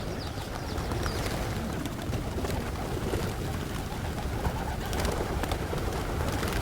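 Pigeons cooing, with other small birds chirping now and then.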